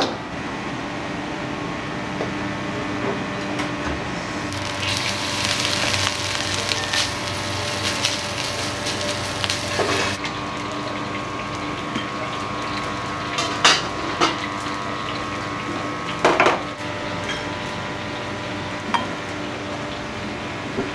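Commercial kitchen at work: a steady hum from the wok burners and extractor fan. A hiss rises for about five seconds, and a few sharp metal clanks of pans and utensils come later.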